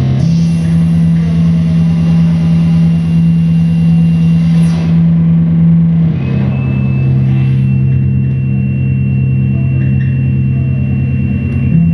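Loud, sustained electronic drone from live experimental noise music: a heavy low tone that steps down in pitch about halfway through and back up near the end, with a thin high whine above it.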